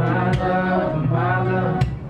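A man singing a song live, accompanying himself on a strummed acoustic guitar, with a strong strum about a third of a second in and another near the end.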